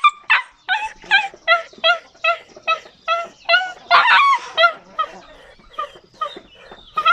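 Dog crying: a rapid series of short, high-pitched whines, about two or three a second, growing fainter in the last couple of seconds.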